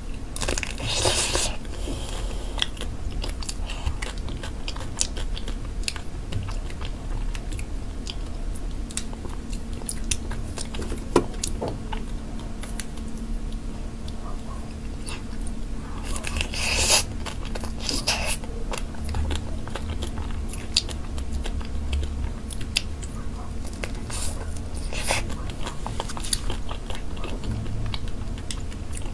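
Close-miked eating sounds: biting into and chewing fruit-shaped mousse cake desserts, with many small mouth clicks and a few louder crackling bursts.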